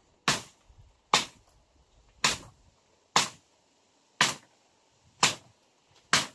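Seven sharp chopping strikes on wood, about one a second, as branches are cut in a thicket.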